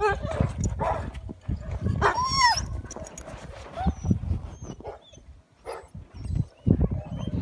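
Husky giving one short arching whine-howl about two seconds in, over uneven low buffeting and rustling noise.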